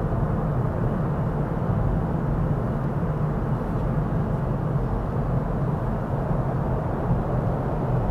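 Steady road and engine noise inside a car's cabin, cruising on a highway: an even low rumble of tyres and engine with a faint hum.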